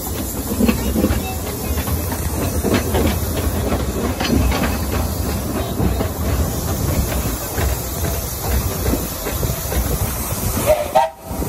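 Narrow-gauge steam locomotive 'Sea Lion' hissing steam as it hauls the train slowly away, with the rumble and scattered clicks of the carriage wheels on the track.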